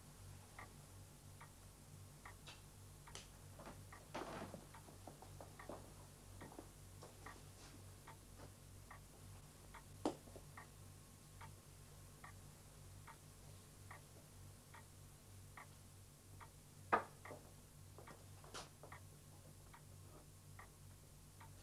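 A clock ticking slowly and evenly, about three ticks every two seconds, with two sharper knocks, one about ten seconds in and one near the end, over a faint low hum.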